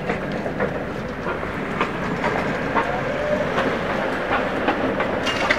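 Tatra T3 tram passing on street track, its wheels clattering over rail joints in a run of sharp clicks over a steady rumble, with a faint, slightly rising motor whine.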